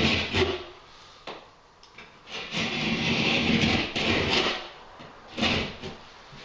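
Stanley knife cutting through plasterboard in a few drawn-out strokes, the longest lasting over a second and a half, as a slot is cut for the shower tray's edge.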